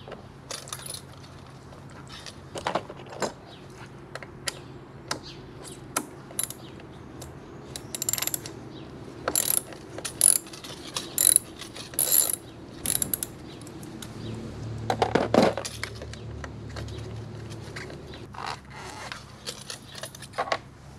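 Hand ratchet wrench clicking in short quick runs, with clinks of metal tools, as the bolts of a scooter's variator (CVT) cover are worked loose. A low rumble swells briefly about two-thirds of the way through.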